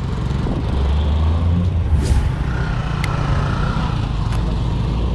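Street traffic: a motor vehicle's engine running close by, with a short hiss about two seconds in and a couple of sharp clicks after it.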